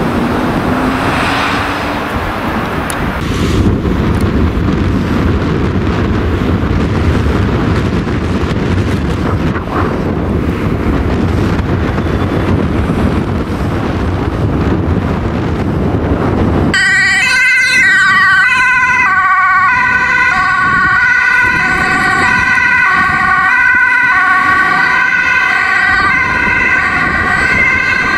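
Road traffic and wind noise, then about two-thirds of the way through an ambulance siren starts abruptly and keeps going, its tone switching back and forth between pitches as the ambulance runs with lights and siren on an emergency call.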